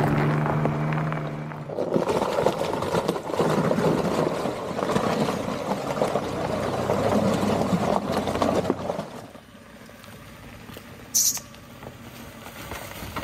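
A 3rd-gen Toyota 4Runner's engine running steadily, then its tires churning and splashing through a muddy puddle for about seven seconds. The sound drops off sharply after about nine seconds, with one sharp click near the end.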